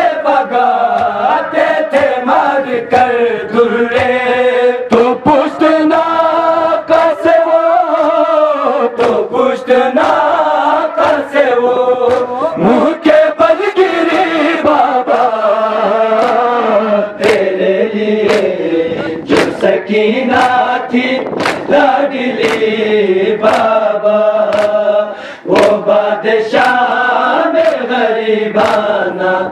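A group of men chanting a noha, a Shia mourning lament, in unison behind a lead reciter. Sharp slaps of hands beating on chests (matam) run through it, coming thicker from about halfway through.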